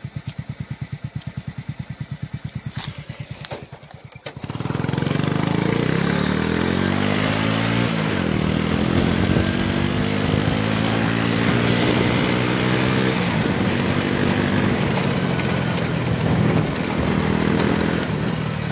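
Small motorcycle idling with an even chug, then pulling away about four seconds in. Its engine note climbs, drops back with a gear change and climbs again as it rides off, with wind rushing over the microphone.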